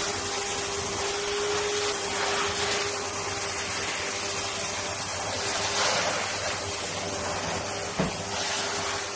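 Vacuum cleaner running steadily as its wide nozzle is drawn over a cat's fur: a constant motor whine under a broad hiss. A brief knock comes about eight seconds in.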